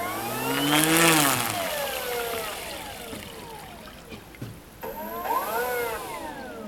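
The 3 kW electric motor and propeller of a radio-controlled Cessna 185 float plane whining as it moves on the water. The pitch swells up and falls back in a throttle burst about a second in, the loudest part, and again more briefly around five seconds in.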